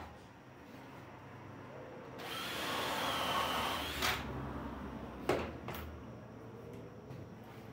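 Cordless drill driver running for about two seconds, driving a screw into the wooden bench frame, followed by a few sharp knocks of the tool and wood being handled.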